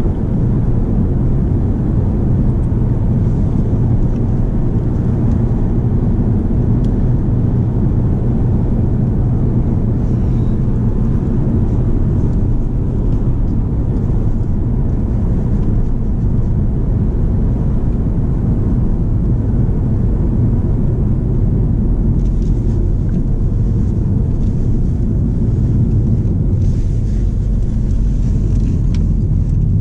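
In-cabin sound of a 2013 Volkswagen Passat's 2.0 TDI four-cylinder turbodiesel on the move: a steady low engine drone under tyre and road rumble.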